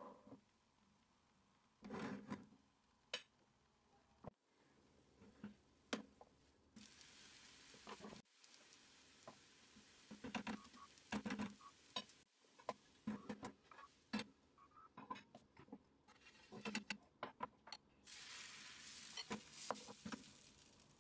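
Faint cooking sounds from a nonstick frying pan: a silicone spatula tapping and scraping at the edge of a cooked chocolate sponge layer in scattered short knocks, and a hissing sizzle as fresh batter goes into the hot pan near the end.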